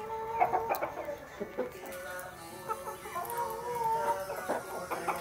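Chickens clucking while they feed, over background music.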